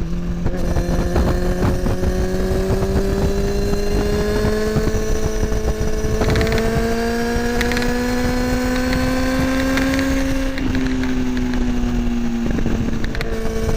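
Kawasaki ZX10R inline-four with an Akrapovic slip-on exhaust under way. After a quick gear change at the start, the revs climb slowly and steadily for about ten seconds, then drop sharply and ease down. Wind rushes over the microphone throughout.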